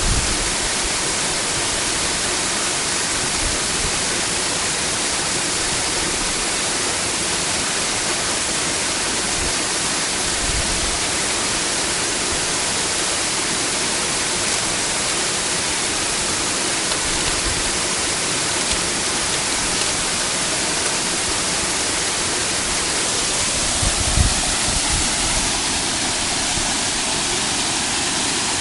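Waterfall rushing steadily, a dense, even wash of water noise, with a few brief low thumps, the largest about 24 seconds in.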